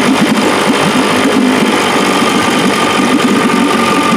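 Mercury 110 9.8 hp two-cylinder two-stroke outboard running steadily in a test tank, being test-run after a water pump impeller replacement. A thin steady whine sits above the engine note.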